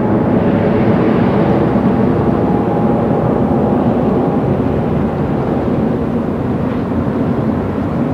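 Boeing 787-8 Dreamliner's Rolls-Royce Trent 1000 turbofans at take-off climb thrust: a steady jet rumble that slowly fades as the airliner climbs away.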